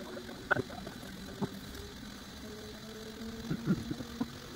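3D printer printing: its stepper motors hum in steady tones that jump to a new pitch as the printhead changes moves, with a few sharp knocks in between.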